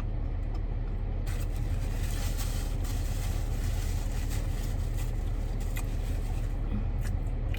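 Steady low rumble inside a car's cabin. From about a second in until near the end, rustling with small crackles and clicks lies over it.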